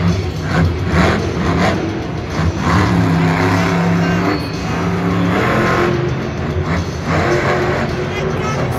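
Monster truck engine revving up and down, holding a steady high note for a couple of seconds in the middle as the truck drives across the dirt course.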